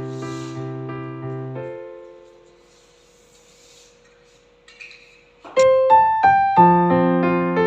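Background piano music: a chord phrase fades out, a single note dies away into a brief lull, and a louder new phrase of notes begins about two-thirds of the way through.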